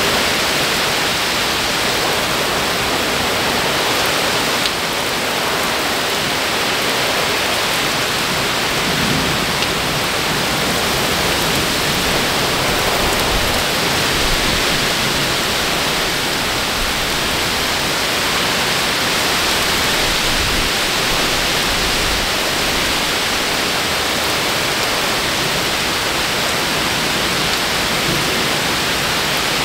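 Very heavy thunderstorm downpour falling steadily, a dense, even hiss of rain.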